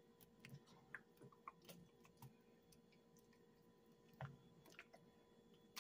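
Near silence with faint scattered clicks and soft wet squishes from a spoon stirring chunky sausage-and-pepper sauce in a slow cooker's crock, one slightly louder knock about four seconds in.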